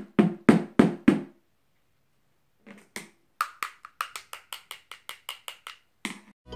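Knocking on a dried homemade air-dry clay planter: about five knocks in the first second and a half, then after a pause a quick run of about a dozen sharper, higher taps, made with the handle of a paintbrush. The loud, hard knock is the sign that the clay has dried completely.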